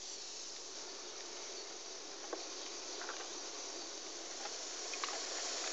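Steady hiss of steam from a live-steam gauge 1 model locomotive's own blower, drawing the fire up while it raises steam, with a few faint ticks.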